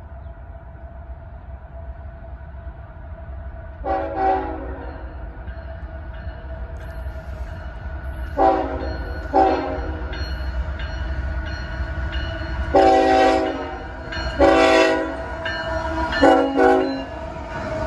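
Approaching CSX freight locomotive sounding its air horn in a series of blasts, several held tones at once: a pair about 4 seconds in, two short ones around 9 seconds, two longer ones around 13 and 15 seconds, and two quick ones near the end. Under the horn, a steady low rumble from the train grows louder as it nears.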